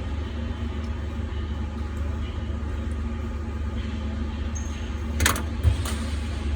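Steady low hum and rumble of workshop background noise, with two light metallic clicks a little after five seconds in from the door lock cylinder being taken apart.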